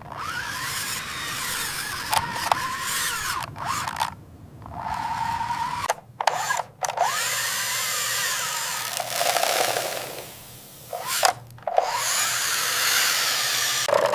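Small electric motor whirring in several runs, its whine rising and falling in pitch, with a few short stops in between.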